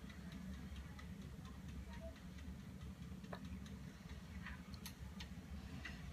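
Faint scattered ticks and small clicks over a low steady hum.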